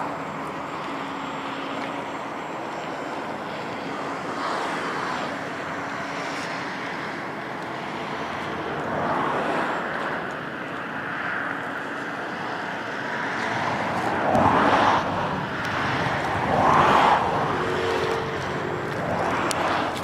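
Radio-controlled model airplane flying, its motor and propeller noise swelling and fading as it makes passes, loudest twice near the end.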